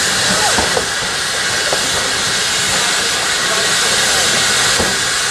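Steam locomotive letting off steam: a loud, steady hiss that does not let up, with a few faint light clicks beneath it as coaches roll past.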